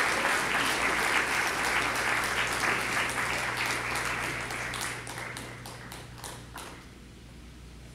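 Audience applauding. The applause thins out about five seconds in to a few scattered claps, then stops, leaving a steady low hum.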